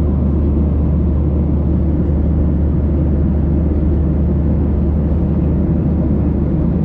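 Boeing 737-800 cabin noise in cruise: the steady, loud low rumble and rush of the engines and airflow, unchanging throughout.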